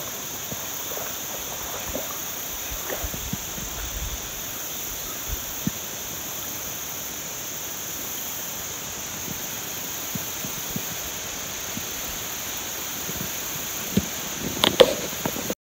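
Steady riverside ambience with a constant high hiss and buzz, with scattered soft clicks of a white-tailed deer buck's hooves on the stony gravel bank. A few louder knocks and crackles come near the end as it moves into the brush.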